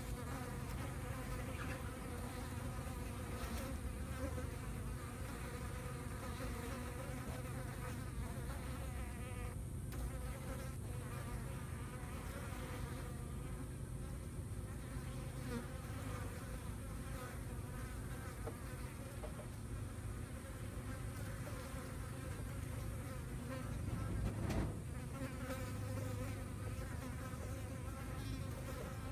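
Flies buzzing steadily and continuously around a dead rat carcass, with one brief knock late on.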